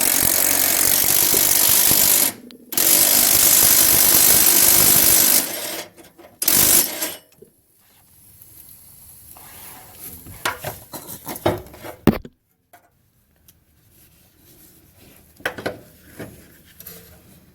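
Impact wrench hammering on rusted, penetrating-oil-soaked bolts: two long runs of about two and a half seconds each with a short pause between, then a brief burst about six and a half seconds in. After that, scattered clicks and knocks of hand work on the parts.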